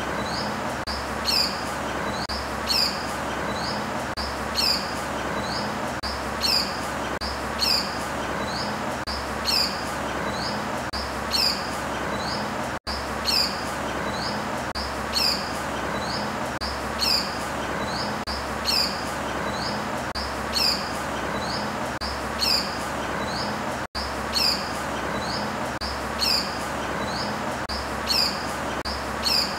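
A bird's short, high chirps, repeated about every one and a half to two seconds over a steady background hiss. The sound cuts out for an instant twice.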